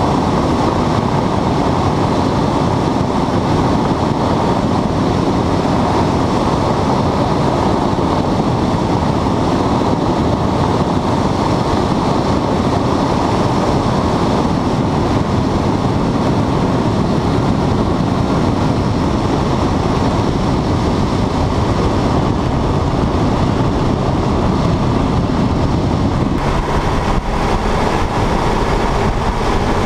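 Westland Lysander's radial engine and propeller running steadily, heard from inside the cockpit with wind noise, as the aircraft flies low on its landing approach. Near the end the sound changes to a deeper rumble as it touches down and rolls on grass.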